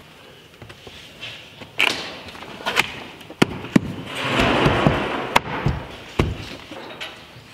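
Vinyl composite trim board being fitted into a window jamb: a string of sharp knocks and taps as it is set and pressed into place, with a scraping rub lasting about a second past the middle.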